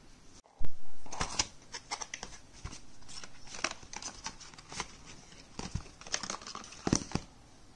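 A loud thump about half a second in, then a run of irregular taps, scrapes and rustles as a small cardboard box is picked up and turned over in the hands.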